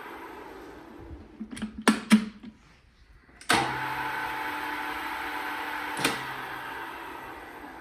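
Hembrug DR1-LS metalworking lathe, driven by a 2.5 HP three-speed 380 V motor. It is winding down at first, then a few sharp metal clunks are heard from the controls. About three and a half seconds in it starts up suddenly and runs steadily; about a second later a click cuts the motor's hum and the machine coasts down, fading.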